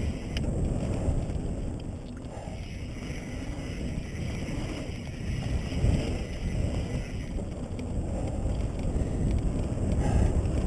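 Mountain bike descending fast on a dirt trail: wind buffeting the helmet camera's microphone over the rumble of the tyres rolling on dirt, with uneven gusts in loudness.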